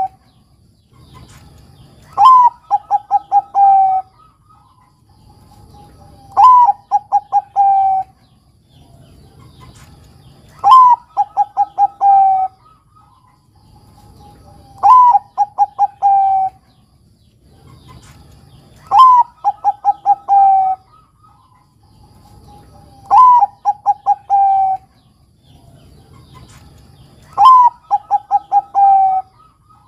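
Bangkok-line zebra dove (perkutut) singing its cooing song. A phrase comes about every four seconds, seven in all, each a higher opening note and then a quick run of short coos ending in a longer drawn-out note.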